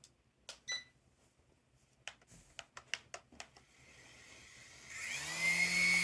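A short beep and a few clicks, then the small coaxial RC helicopter's electric rotor motors spin up with a rising whine and settle into a steady high whine near the end.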